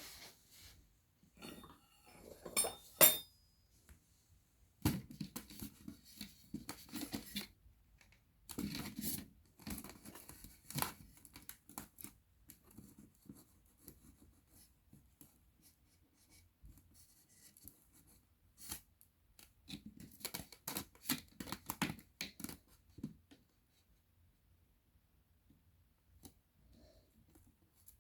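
Round plastic cake box and lid handled close to the microphone: crackling, scraping and clicking plastic in several bursts separated by quiet pauses, dying away near the end.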